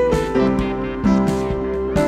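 Instrumental background music with keyboard notes over a steady beat.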